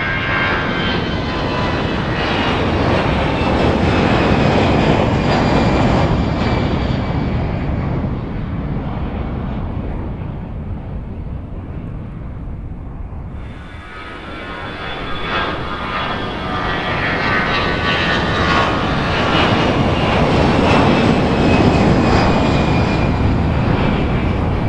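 CFM56-5B turbofans of Airbus A320-family jets at takeoff power: a loud roar with high fan whine tones that slowly fall in pitch as the jet passes, fading away. About halfway, the sound cuts abruptly to another takeoff, which builds up again with the same falling whine.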